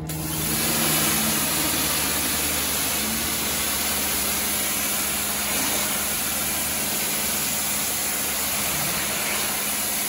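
Pressure washer spraying: the steady hiss of the high-pressure jet on a soaped nylon seat belt, over the low hum of the washer's motor and pump. The spray starts abruptly as the trigger is pulled.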